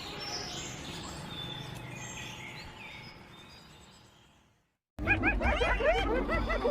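Scattered bird chirps over background noise fade out to a moment of silence. About five seconds in, a dense chorus of many small birds chirping at once starts abruptly.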